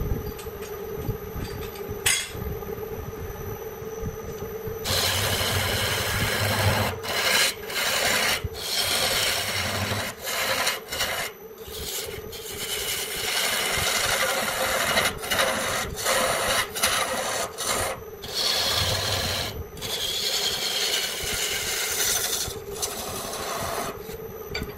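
Wood being worked by hand with an abrasive tool: rough rubbing strokes against the wood. They grow much louder about five seconds in and come in runs broken by short pauses, over a steady hum.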